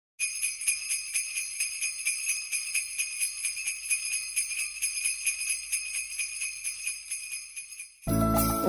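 Jingle bells shaken in a steady rhythm, easing off slightly before stopping. Just before the end, music with a strong bass line cuts in.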